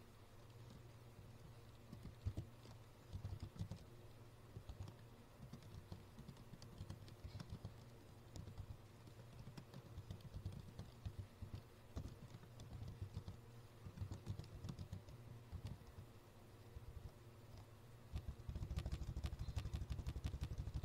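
Typing on a computer keyboard: irregular keystrokes over a low steady hum, then a fast run of louder key presses near the end as the Enter key adds blank lines.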